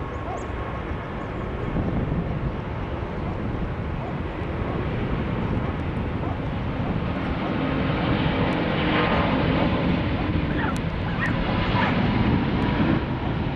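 Airbus A380-842's four Rolls-Royce Trent 900 turbofans at takeoff power during the takeoff roll, a steady jet rumble that grows gradually louder as the airliner accelerates past and then eases slightly near the end.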